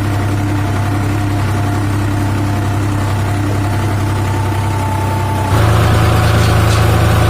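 New Holland 4710 tractor's three-cylinder diesel engine running steadily, becoming suddenly louder and rougher about five and a half seconds in.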